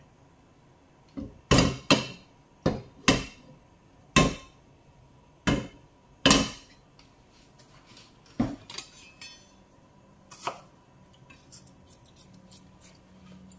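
Kitchenware knocking and clinking against a pan and countertop: about ten sharp separate knocks in the first nine seconds, then a few faint clicks.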